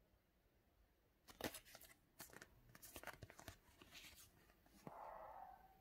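Faint crinkling and clicking of fingers handling the cardboard hang tag of a New Era knit beanie, starting about a second in, with a brief soft rubbing sound near the end.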